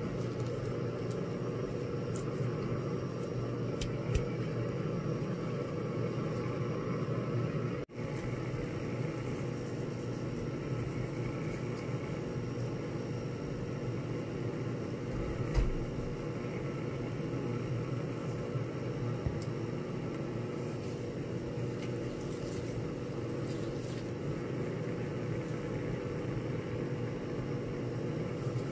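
A steady low mechanical hum with a couple of faint, sharp clicks.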